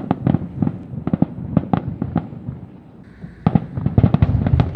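Aerial fireworks display: an irregular series of bangs and crackles, coming thicker about three and a half seconds in.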